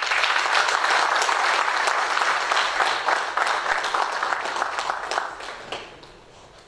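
Audience applause: a round of many hands clapping together, fading away about five or six seconds in.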